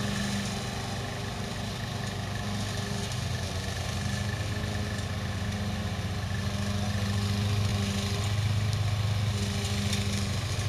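Hybrid remote-control slope mower's gas engine running steadily under load as it cuts through thick grass about two feet tall, its note growing a little louder in the second half.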